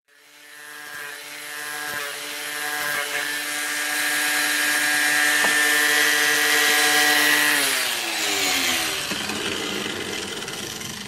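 Small electric angle grinder running and grinding the end of a metal exhaust pipe: a steady motor whine under a grinding hiss. About seven and a half seconds in it is switched off and winds down, its pitch falling.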